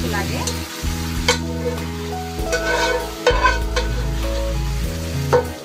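Whole pigeons in spicy gravy sizzling in a hot karahi of oil and fried onions, stirred with a spatula, with sharp scrapes or knocks of the spatula on the pan about a second, three seconds and five seconds in.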